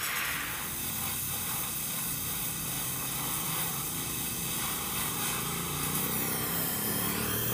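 Gas welding torch flame hissing steadily while welding a steel exhaust pipe.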